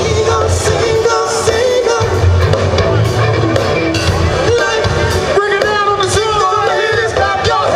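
Loud music with singing and a heavy bass line, played over a sound system.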